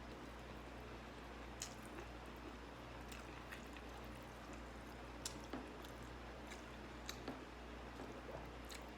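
A person chewing food, wet mouth sounds with a few scattered sharp crunchy clicks, over a low steady hum.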